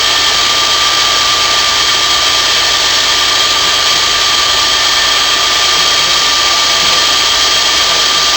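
Electric motor of a line-boring rig running steadily while it drives the boring bar through the main bearing bores of a Volkswagen engine case. It is a constant, loud machine noise with a steady whine.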